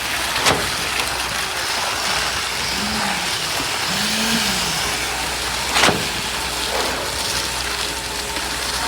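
Engine of concrete pouring machinery running steadily, with two sharp knocks: one about half a second in, one near six seconds.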